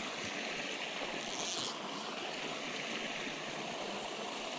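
Small creek waterfall spilling into a pool: a steady rush of running water, with a brief higher hiss about a second in.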